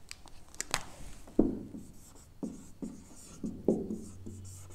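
Marker pen writing on a whiteboard: a string of short squeaky strokes with a few sharp taps of the tip against the board.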